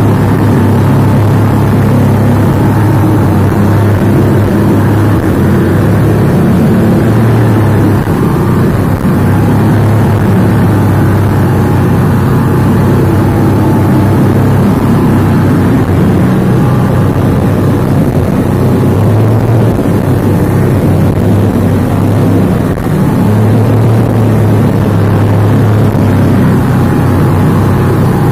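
Outboard motor of a passenger speedboat running steadily at high speed with a loud, even drone, over the rush of the churned wake.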